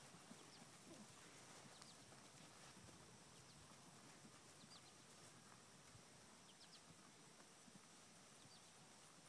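Near silence: faint outdoor background with a few faint short high chirps now and then.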